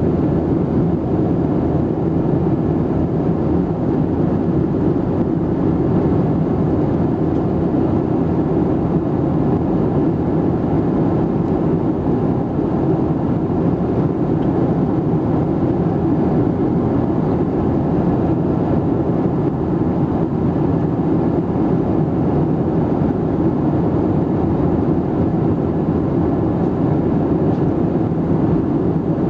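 Steady drone of a Boeing 737-700's CFM56 turbofan engines and airflow, heard from inside the passenger cabin, even and unchanging throughout.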